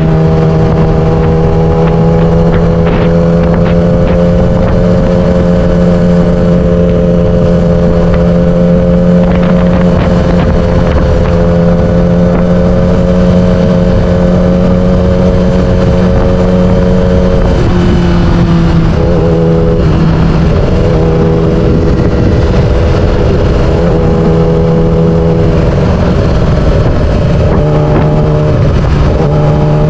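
Yamaha R6's 600 cc inline-four engine running under way at a steady pitch, then dropping and climbing back in steps several times in the second half as the revs change.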